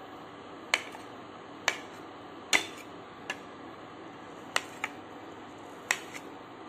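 Kitchen knife cutting soft steamed idli on a plate, its edge knocking the plate in short sharp clicks, about eight of them at uneven intervals of roughly a second.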